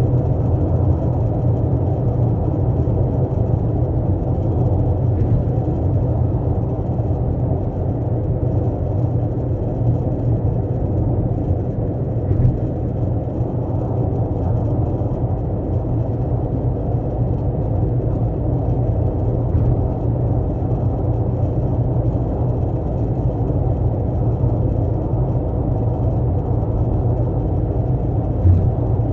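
Steady low rumble of a 12th-generation Toyota Corolla Altis on the move, road and drivetrain noise, with a few faint clicks about 5, 12 and 28 seconds in.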